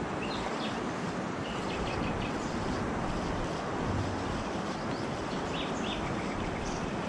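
Steady outdoor rush of wind and water over a river, with a few short bird chirps now and then.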